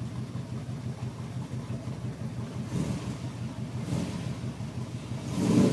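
Pickup truck engine running and revving in surges as the truck ploughs through shallow water, with louder surges about three and four seconds in and the loudest near the end.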